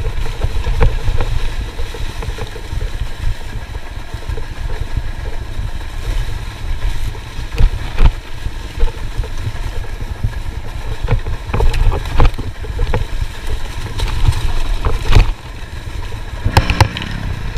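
Enduro dirt bike engine running at low revs while riding downhill over rough, leaf-covered ground, with a heavy rumble of wind on the microphone and frequent short knocks from the bike jolting over the terrain.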